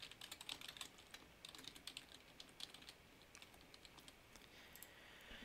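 Faint typing on a computer keyboard: quick, irregular keystroke clicks that stop a little past halfway.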